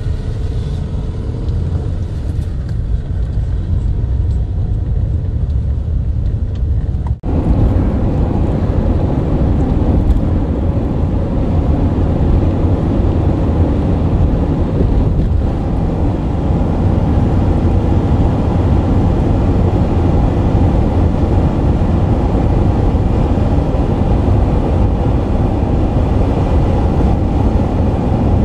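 Car interior noise: a steady low rumble of engine and tyres as the car rolls slowly, then, after a sudden cut about seven seconds in, a fuller, slightly louder rumble of cruising at highway speed.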